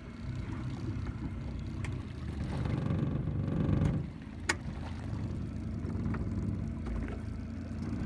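Small boat's engine running steadily under way, swelling louder about three to four seconds in. A single sharp click about four and a half seconds in.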